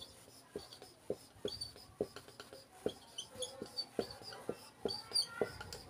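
Dry-erase marker writing on a whiteboard: a run of short, irregular taps and small squeaks as the words are written.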